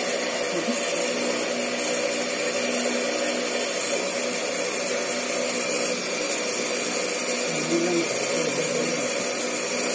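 Steady whirring of an electric motor with a constant high hiss.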